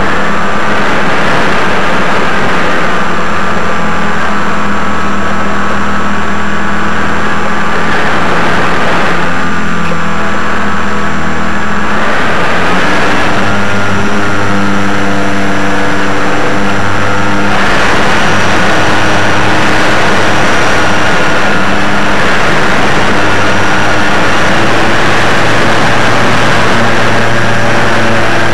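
Model aircraft's motor and propeller running, heard loud from the camera carried on board, with a steady whine. Its pitch steps up about twelve seconds in and again a few seconds later.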